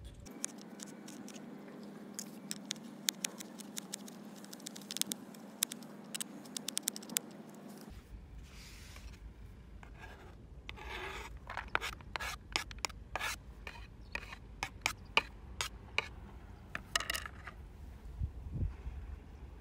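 Kitchen knife mincing garlic on a plastic cutting board: a run of quick, irregular taps, then the blade scraping the minced garlic across the board.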